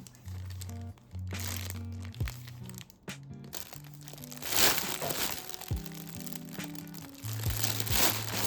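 Background music with a bass line and a steady beat, with a louder noisy burst about halfway through and another near the end.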